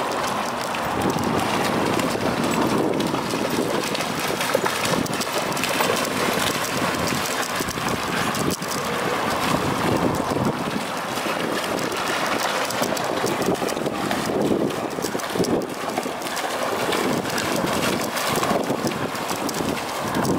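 Wind buffeting the handheld camera's microphone in a steady rushing noise.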